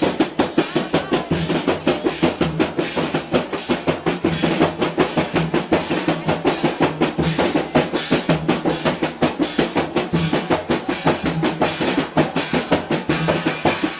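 Mandar rebana ensemble: several large frame drums struck by hand in a fast, dense, steady interlocking rhythm, with a snare drum played with sticks.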